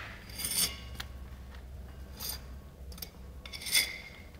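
Three short scrapes of a metal blade rubbed against the cut face of a brick skewback, the last the loudest, over a faint low hum.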